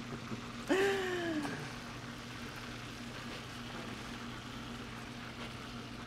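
Salt cod pieces frying in a pan of hot oil, a steady low bubbling with a constant hum under it. About a second in comes a short hummed voice, its pitch rising and then falling.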